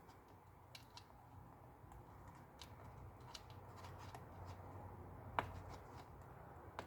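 Faint scattered clicks and taps of small parts and tools being handled on an iPad under repair, with one sharper click about five and a half seconds in and another near the end.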